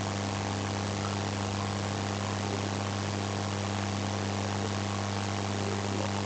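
Steady low mains hum with an even hiss behind it, unchanging throughout.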